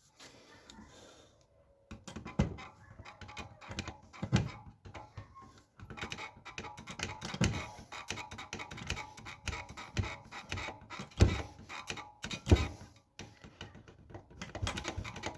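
Worn bearing of a removed belt tensioner pulley crunching and clicking as the pulley is turned by hand, starting about two seconds in, with a few louder knocks. This crunching bearing is the cause of the engine's knocking and rattling.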